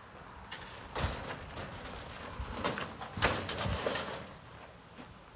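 Large aluminum dog crate being turned over and set down on gravel: several metal knocks and rattles from its panels, about one second in, around two and a half seconds, and a loudest cluster just after three seconds.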